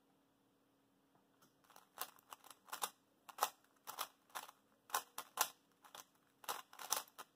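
Plastic 3x3 speed cube being turned rapidly during a speedsolve: a quick, uneven run of clacking turns, several a second, starting about a second and a half in.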